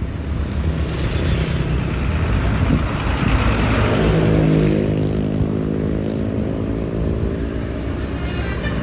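Heavy road vehicle running past with a rushing engine and road noise; a steady low engine drone comes in about four seconds in and holds until near the end.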